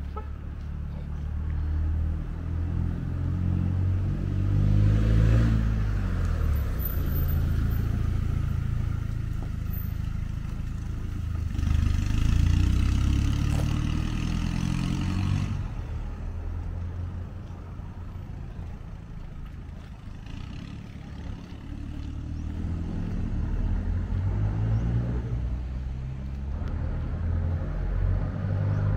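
Passing road traffic: vehicle engines rise and fade three times. The loudest pass comes about halfway, when a pickup truck drives by with a rush of tyre noise that cuts off sharply.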